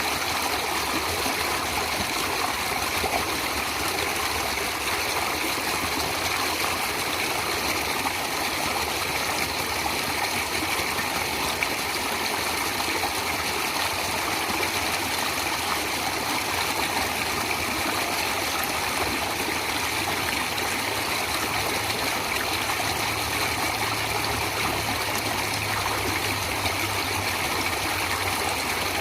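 Natural running water: a stream flowing steadily, an even unbroken sound with no distinct splashes.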